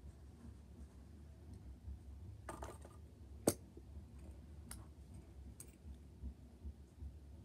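Faint clicks and a short rattle from a toy garbage truck and its toy trash cans being handled: a brief rattle, one sharp click about three and a half seconds in, then two fainter clicks.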